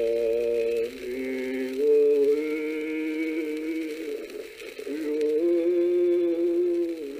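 A man singing a Passamaquoddy song unaccompanied, in long held notes that step from one pitch to the next.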